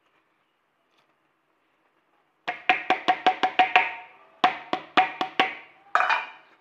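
Quick runs of sharp percussive taps, each with a short ringing tone: about seven in a rapid burst, a short pause, then five more and a final flurry.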